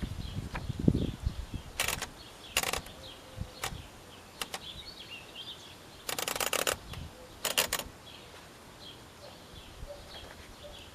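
1920 Underwood No. 5 manual typewriter mechanism clicking: four short runs of rapid ratchet-like clicks, the longest lasting under a second, with a few single clicks between. Birds chirp faintly in the background.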